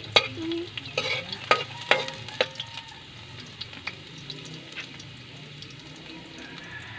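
Chopped garlic sizzling in a metal wok over a wood fire. A metal spatula knocks and scrapes against the pan several times in the first couple of seconds, then the sizzle goes on steadily.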